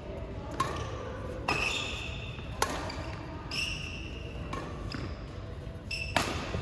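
Badminton rally: rackets strike a shuttlecock with sharp hits, about six of them, roughly one a second, several followed by short high squeaks.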